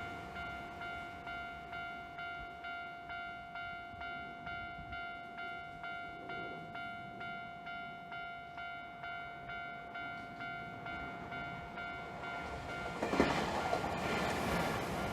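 Japanese railway level-crossing warning bell ringing about twice a second, then a Keio Inokashira Line train arriving and passing about 13 seconds in, its running noise swamping the bell.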